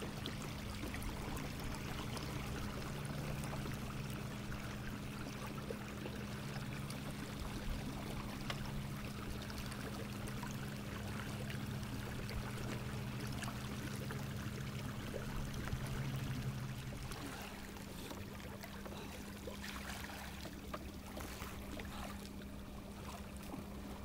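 Water rushing and gurgling along a canoe's hull under way, over the steady hum of an electric trolling motor. A lower tone in the hum drops out about three quarters of the way through.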